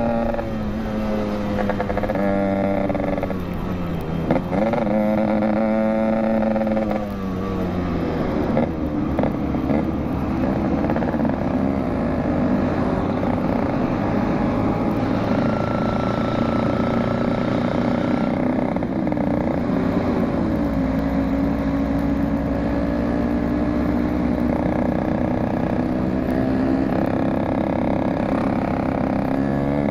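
Yamaha RX-King's single-cylinder two-stroke engine under way on a ride: it revs up and changes gear in the first seven seconds or so, the pitch climbing and dropping with each shift, then runs at a steady cruising pitch with a brief dip about twenty seconds in.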